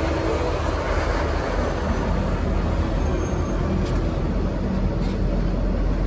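N class diesel-electric locomotive, an EMD two-stroke V12, running steadily as it pulls its train out and passes close by, its engine hum fading as the passenger carriages follow, rolling over the track with a steady rumble.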